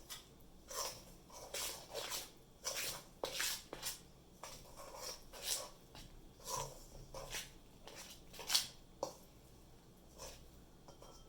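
A spoon stirring thick pancake batter in a mixing bowl: a run of short, irregular scraping strokes, about one or two a second, as the flour, egg, milk and oil are worked together.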